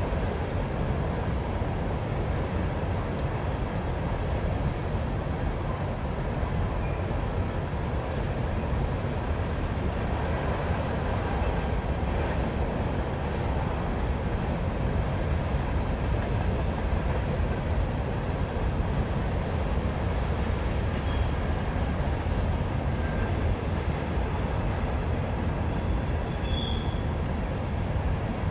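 CSX empty coal train rolling past, its wheels giving a steady rumble on the rails with faint, evenly spaced clicks.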